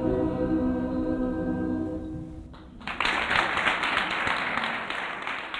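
A choir sings and holds a chord that dies away about two and a half seconds in. About half a second later, audience applause breaks out and starts to fade toward the end.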